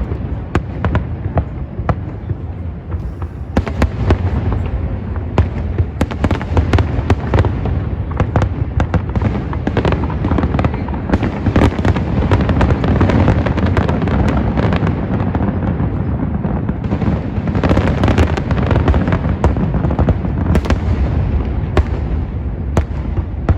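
Fireworks display: a dense, continuous barrage of booming shell bursts and crackling, with a steady low rumble underneath, thickest in the middle stretch.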